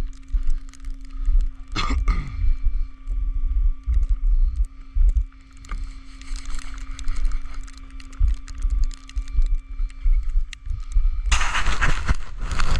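Wind buffeting the microphone in low, uneven thumps over a faint steady hum, with a loud rushing burst about a second before the end.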